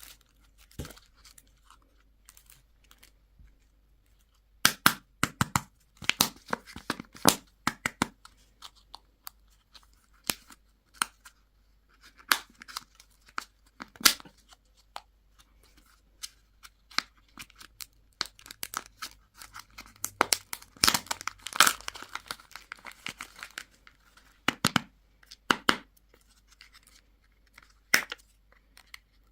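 Candy or toy wrappers being handled and torn open, with irregular crinkling and sharp tearing crackles that start about four and a half seconds in.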